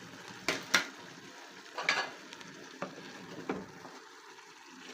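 A pot of githeri, cabbage and carrots sizzling because its cooking water has dried up, with a spoon stirring it and knocking against the pot about five times.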